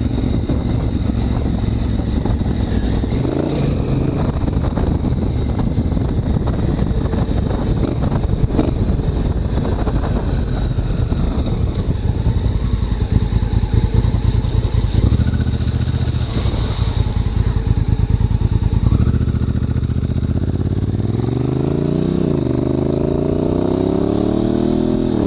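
Honda Africa Twin CRF1000L's parallel-twin engine running under way, a steady dense rumble with clattering noise. In the last few seconds its pitch climbs, dips briefly, then climbs again as the bike accelerates.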